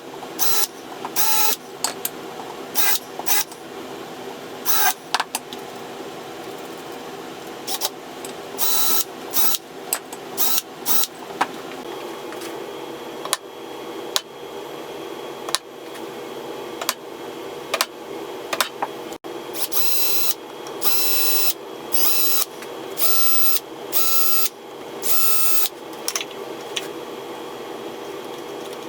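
A drill driving pocket screws into plywood in short trigger bursts. Each burst whirs for a fraction of a second, and the bursts come in clusters, most densely in the last third, over a steady mechanical hum.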